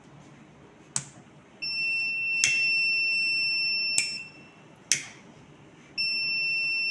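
Arduino smoke detector's buzzer sounding a steady high-pitched tone, set off by the flame held near its MQ gas sensor. It sounds for about two and a half seconds, stops, and comes on again about six seconds in. A few sharp clicks fall in between.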